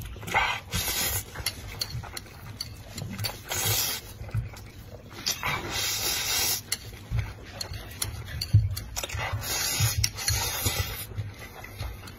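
Plastic instant-noodle packets rustling and crinkling as they are handled, in several bursts of a second or two, with soft knocks in between.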